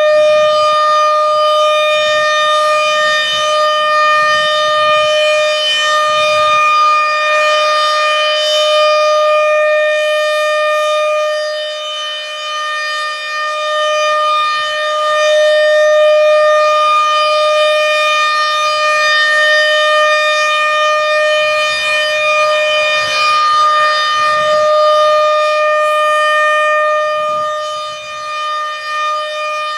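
American Signal RM130 rotating tornado siren sounding a steady tone during its weekly test. The pitch holds level while the loudness swells and dips as the horn turns, dipping about twelve seconds in and again near the end.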